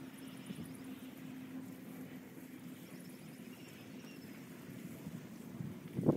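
Outdoor farm ambience: a steady low hum like a distant engine, with a few faint high chirps. A sudden louder noise starts right at the end.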